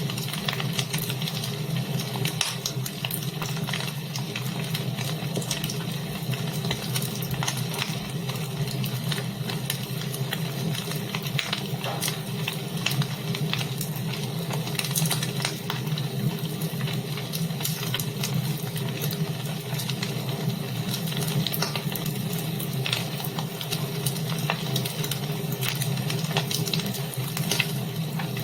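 Wood fire burning in a fireplace, with a steady hiss and many small irregular crackles and pops.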